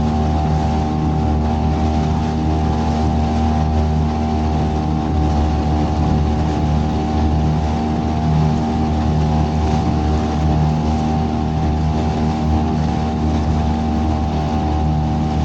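Boat engine running steadily at constant speed, a loud even drone.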